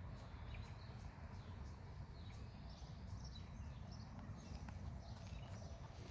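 Faint outdoor birdsong: scattered short chirps and calls over a low, steady rumble.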